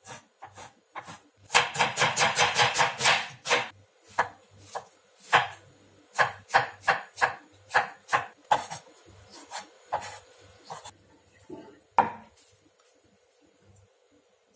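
Kitchen knife chopping on a wooden cutting board, cutting meat and button mushrooms: a fast run of chops early on, then slower single cuts, with one last knock about twelve seconds in.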